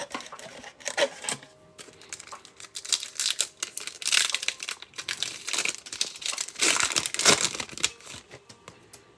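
Foil wrapper of a trading card pack crinkling and tearing as it is ripped open and handled, in a run of irregular crackles and rustles.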